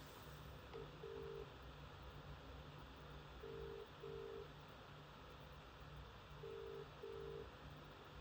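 Phone ringing with a double-ring cadence: two short tones, repeated about every three seconds, three times.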